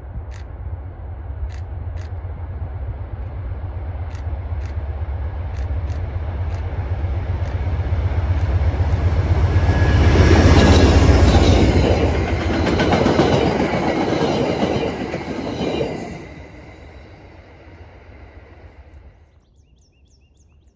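CTrail diesel passenger train, led by a GE Genesis locomotive, approaching and passing close by at speed: a deep engine rumble and wheel noise that build steadily, are loudest as the locomotive goes by about ten seconds in, stay loud while the coaches roll past with some wheel clatter, then drop off sharply about sixteen seconds in and fade away.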